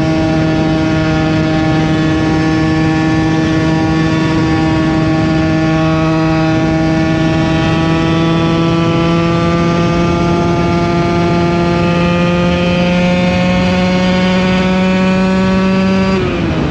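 KTM EXC 125 two-stroke single-cylinder engine held at high revs while riding, its note climbing slowly and steadily as the bike gains speed, with wind rushing over the microphone. Near the end the engine note drops sharply as the throttle is closed.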